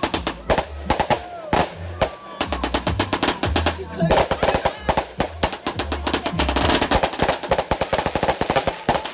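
Ground-launched fireworks firing shot after shot in quick succession, a dense crackling barrage of bangs, with music playing underneath.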